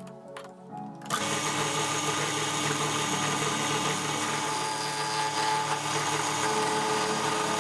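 A small workshop machine tool running steadily with a dense, even whine. It comes in abruptly about a second in, after a faint tail of music.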